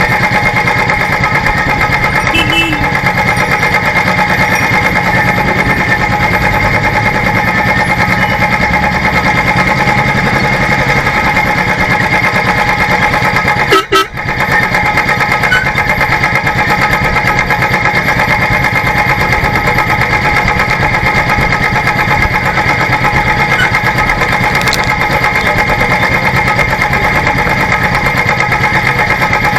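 Royal Enfield Classic Electra's single-cylinder four-stroke engine running steadily under way, heard from a camera mounted on the bike, with a brief dropout about halfway through.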